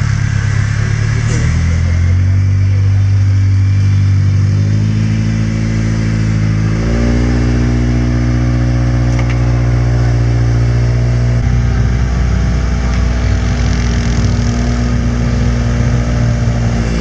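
Engine of a Suzuki Samurai trial truck on UAZ portal axles, working under load as it crawls through deep mud. The revs are held steady for a few seconds at a time, with the pitch shifting several times as the throttle changes.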